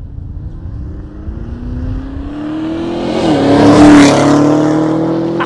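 Chevrolet Camaro ZL1's 6.2-litre supercharged V8 accelerating hard, its engine note climbing in pitch, dipping briefly about three seconds in, then climbing again. It is loudest about four seconds in.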